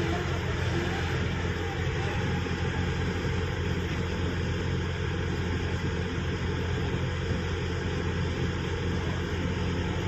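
Sany 135 excavator's diesel engine running at a steady, unchanging speed, heard from inside the operator's cab as a low drone.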